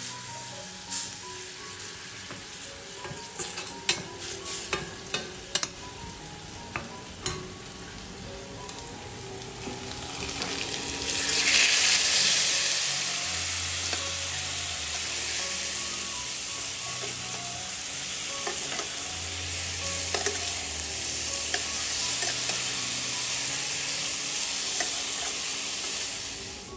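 Food frying in a pan on the stove. A spatula taps and scrapes against the pan as it is stirred, then about eleven seconds in the sizzling jumps up loud and carries on steadily. Soft background music plays underneath.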